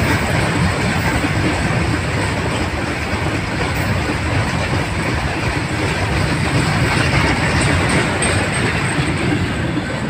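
Freight train of covered goods wagons passing a level crossing: a steady, loud noise of the wagons' wheels running over the rails.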